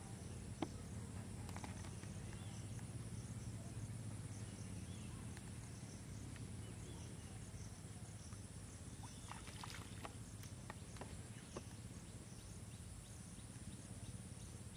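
Quiet outdoor pond-side ambience: a steady low hum under a faint, steady high insect drone. One sharp click comes just under a second in, and a scatter of faint short ticks about two-thirds of the way through.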